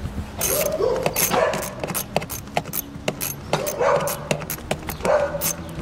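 Plastic clicks and knocks as the engine-bay cowl cover panel is handled and pressed down onto its clips, with four short pitched animal calls over it.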